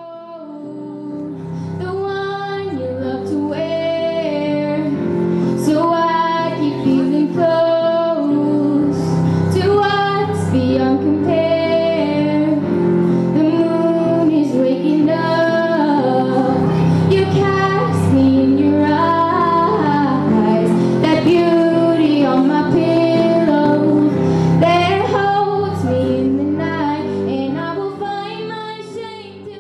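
A girl singing solo into a handheld microphone, a slow melody with long held notes over a musical accompaniment. It fades in at the start and fades out near the end.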